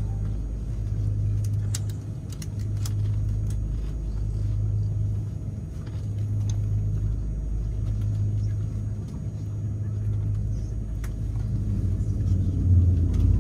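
Steady low cabin rumble of a Boeing 787-9 airliner taxiing with its engines at idle, swelling and easing slightly every couple of seconds, with a few faint clicks.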